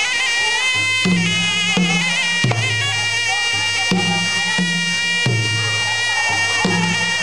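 Traditional Kun Khmer ring music: a sralai (Khmer quadruple-reed oboe) plays a continuous, wavering reedy melody over low skor yaul drum strokes in a regular pattern, the accompaniment to the boxers' kun kru pre-fight ritual.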